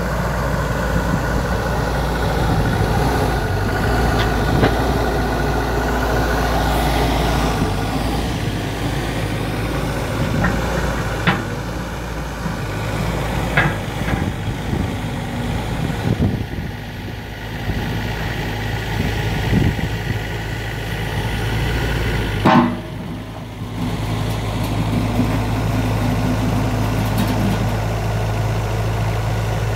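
Terex TC35 mini excavator's diesel engine running under hydraulic load as the boom and bucket are worked, with a steady whine in the first few seconds and a few sharp metallic knocks, the loudest a little over two-thirds of the way through.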